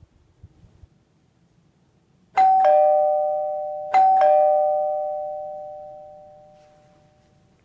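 Two-tone doorbell chime rung twice: a high tone then a lower one (ding-dong), repeated about a second and a half later, the second ding-dong ringing out and fading slowly.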